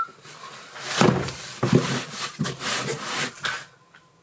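Cardboard boxes being handled: rustling and scraping with several dull thumps, dying away near the end.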